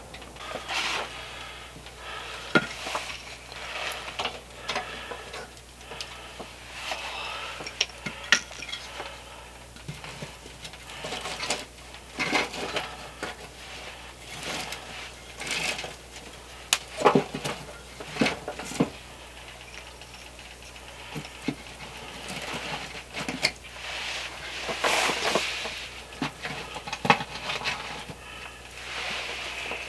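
Irregular clinks, knocks and scrapes of metal gear being handled, like pots and utensils being moved about.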